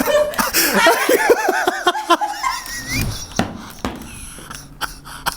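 People laughing, with high, warbling giggles over the first two seconds or so, then a few scattered knocks and rustles.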